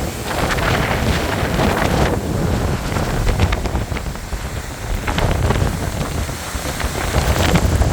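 Strong, gusty hurricane wind buffeting the microphone, a loud rushing roar that surges and eases in gusts.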